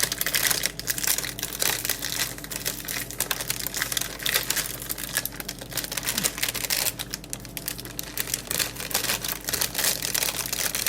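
Ice cream snack packaging being opened: continuous crinkling and crackling, dense and irregular.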